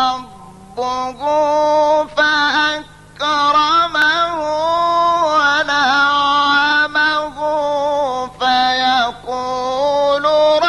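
A solo male Quran reciter chanting in the melodic mujawwad style, following a maqam. He holds long ornamented notes that waver and bend in pitch, broken by a few short pauses for breath.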